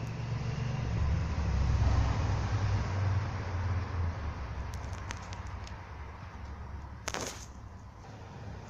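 Packaging being handled while a keyboard box is unboxed: a low rumble, a few light clicks, and one short sliding swish about seven seconds in.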